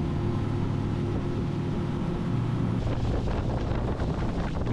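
A fishing boat's outboard motor running steadily at speed, its note rising slightly a little after two seconds in. Wind buffets the microphone from about three seconds in.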